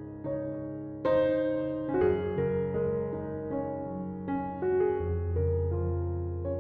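Background piano music: a slow melody of single notes over held chords, with a deep bass note entering about five seconds in.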